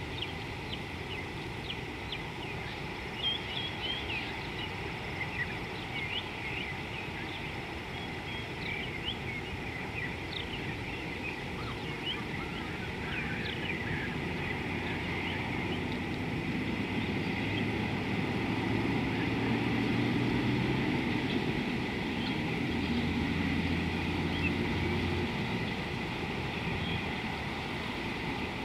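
Steady outdoor background noise with many small birds chirping through the first half. From about halfway a low, steady engine drone comes in, swells, and fades before the end.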